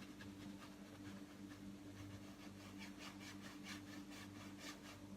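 Faint scratching of a paintbrush on canvas as acrylic paint is brushed on, with a quick run of short strokes about three seconds in, under a steady low hum.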